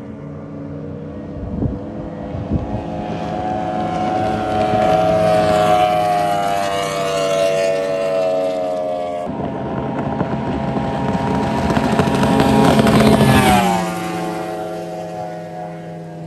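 High-performance outboard motor on a race-rigged bay boat running flat out in a high-speed pass, its engine whine climbing in pitch. It is loudest a little past the middle, and the pitch then drops sharply as the boat goes by. Two short knocks come about two seconds in.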